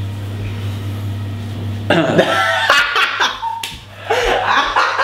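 A steady low hum for about two seconds, then men laughing loudly in short, broken bursts.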